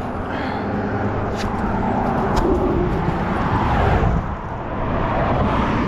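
Road traffic passing: vehicle engine and tyre noise that swells, drops briefly about four seconds in, then rises again.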